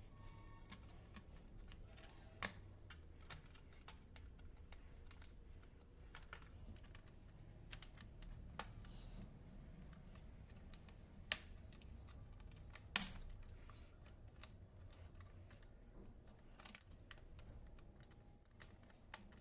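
Faint, scattered clicks and taps of plastic laptop parts being handled as the bottom cover is lifted off, a few of them sharper, over a low steady hum.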